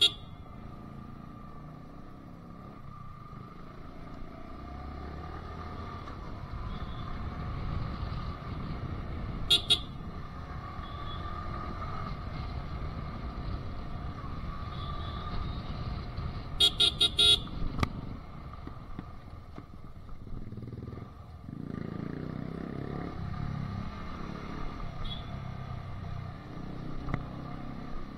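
Yamaha R15 M motorcycle's single-cylinder engine running at low road speed, heard from on board, its sound swelling and easing as the throttle changes. A horn beeps twice about ten seconds in, then sounds a quick string of about five short honks at around seventeen seconds.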